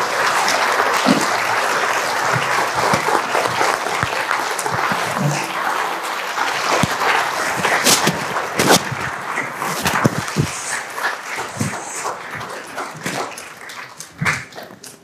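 Congregation applauding steadily, thinning out and dying away over the last few seconds.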